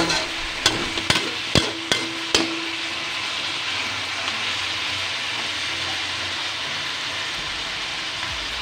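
Pork chops sizzling in a stainless steel wok while a metal spatula turns them over. The spatula clanks against the pan about five times in the first two and a half seconds, and the wok rings faintly. After that there is a steady sizzle.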